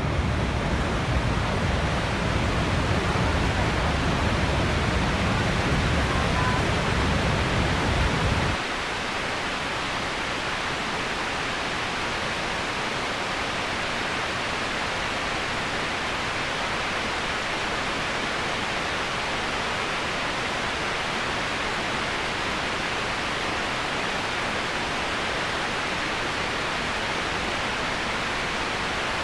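Waterfall's water rushing in a steady, even roar. For about the first eight seconds a deep rumble sits underneath; then it drops away suddenly, leaving a slightly quieter, hissier rush.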